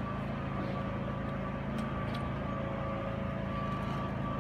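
Steady low background hum with a few faint steady tones above it and a few faint short ticks.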